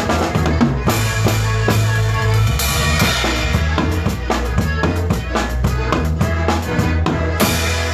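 Live band music: an instrumental passage driven by a drum kit with bass drum and snare over a steady bass line.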